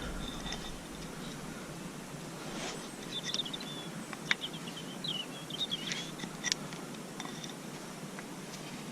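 Faint bird twittering, a run of small wavering chirps in the middle, with a few light clicks and taps.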